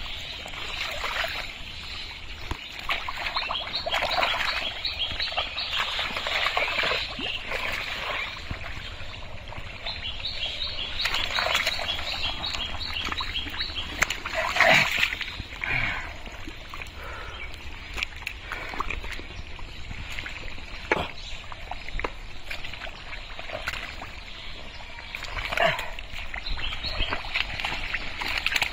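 Hands splashing and squelching through thick pond mud while groping for and grabbing fish, in irregular bursts that are loudest about halfway through. Birds chirp in the background.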